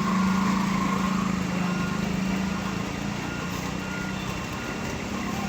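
Heavy truck's diesel engine running hard and steadily under load on a steep climb, loudest in the first half. Short faint beeps recur every second or so.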